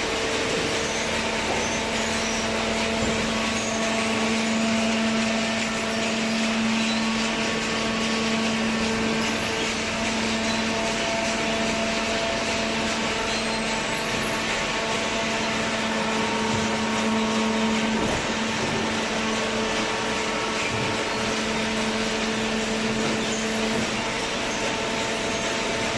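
Hydraulic carton baler running: a steady drone of pump and motor over broad machine noise, with a steady low hum that fades out near the end.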